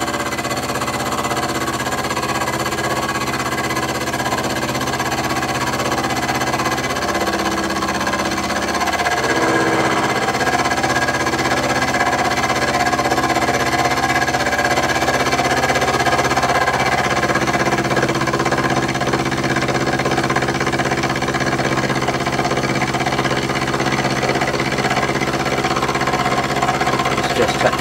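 Milling machine spindle running while an end mill takes a 0.1 mm cut across a cast-iron vise jaw face: a steady machine whine made of several tones. The note sags briefly about eight seconds in, then holds steady again.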